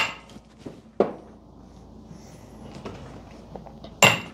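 Hammer blows on the front output yoke of a New Process 241C transfer case, driving it off its shaft. There is a sharp ringing metal strike about a second in, then light clinks and handling noise, and two more strikes near the end.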